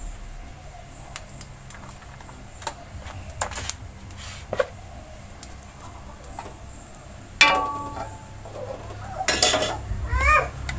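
Metal spatula and wok clinking and knocking on a gas stove: scattered light clicks, then two louder knocks about seven and a half and nine seconds in. Near the end comes a short run of quick high calls.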